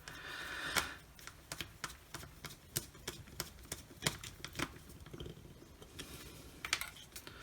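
Faint, irregular small clicks and taps as a wire is fitted back onto a cordless circular saw's switch terminal, with brief rustling of handling about a second in.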